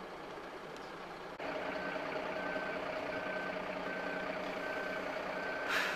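Fire truck's reversing beeper sounding single beeps at an even pace, roughly one every three-quarters of a second, over a steady engine hum. The beeping starts about a second and a half in, after a lower steady hum. A short hiss comes near the end.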